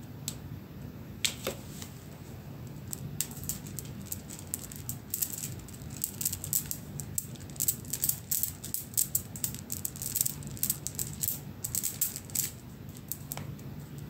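A string of beads rattling and clicking as toes move and shake it. A few separate clicks come first, then a dense run of rattling clicks through the middle, which stops a little before the end.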